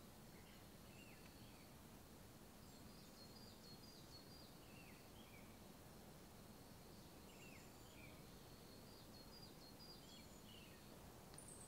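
Near silence with faint bird chirps: short, high, falling notes in small scattered clusters over a quiet background hiss.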